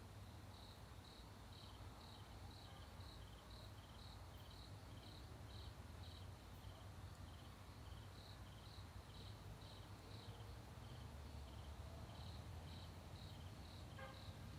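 Crickets chirping faintly and evenly, about two chirps a second, stopping briefly twice, over a low steady hum.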